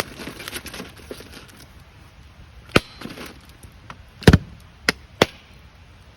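Handling clatter, then four sharp knocks on a hard surface, the loudest a quick double knock a little past the middle.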